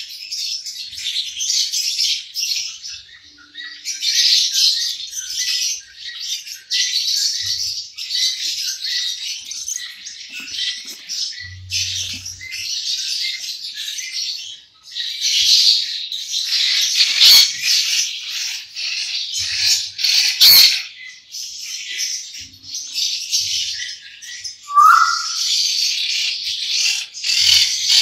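A flock of caged lovebirds chattering, a dense high-pitched chirping that barely lets up. Near the end a single lower squawk stands out.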